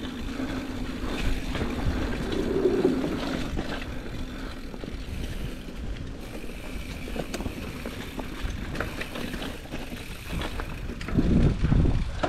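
Mountain bike ridden over rough singletrack: tyres rumbling on the dirt, with the chain and bike parts rattling and clicking over bumps and wind buffeting the microphone. A few heavier jolts come near the end.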